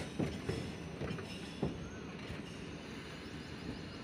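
Passenger coaches rolling past close by, with a steady low rumble of wheels on rail. Several sharp knocks in the first two seconds, then steadier running.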